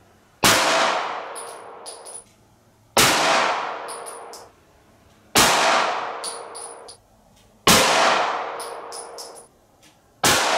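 Five 9mm pistol shots from a Glock 19 firing 124-grain Federal PUNCH hollow points, evenly spaced about two and a half seconds apart, each with a long fading echo. Light metallic clinks of spent brass cases landing follow each shot.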